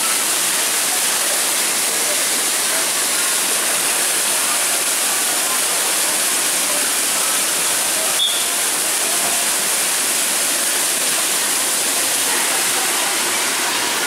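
Steady rush of water running through a water park's bowl slide and churning in the plunge pool beneath it, with a brief click about eight seconds in.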